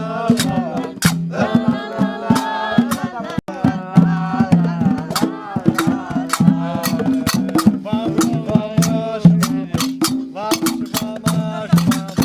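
Berber folk music: voices singing over hand drums beating a quick, dense rhythm, with a steady low tone underneath.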